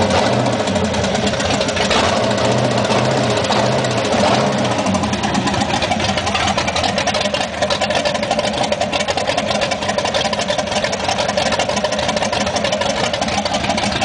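GM LT1 small-block V8 running at idle on all eight cylinders, its speed wavering over the first few seconds and then settling. A light ticking runs through it, which the owner takes as a sign that something is still not right.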